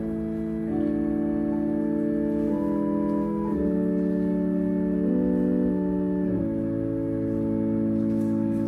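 Organ playing slow, sustained chords that shift every second or so, as offertory music.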